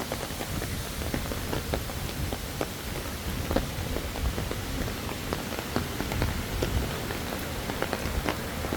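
Rain falling, with scattered irregular drips and taps over a steady hiss and a low rumble.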